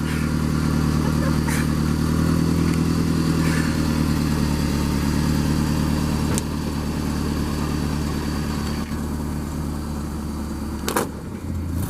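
An engine running steadily at an even speed. About eleven seconds in a sharp knock sounds and the engine note changes.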